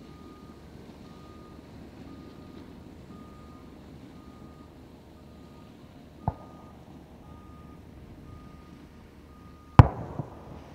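Two sharp firework bangs, a small one about six seconds in and a much louder one near the end with a short echo after it. Under them a steady electronic beep repeats at one pitch about every three quarters of a second.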